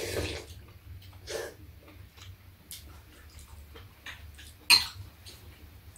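A few short eating noises from people having soup: slurps and light clicks of metal spoons in bowls, the loudest near the end, over a low steady hum.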